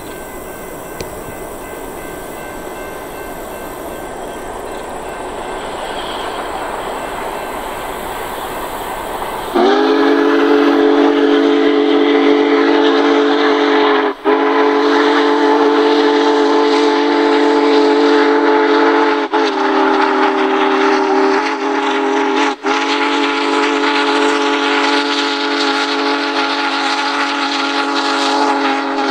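Union Pacific Big Boy 4014 steam locomotive approaching with a rising rumble, then its multi-chime steam whistle blowing at a grade crossing: four blasts with short breaks, the third shorter, in the long-long-short-long crossing pattern.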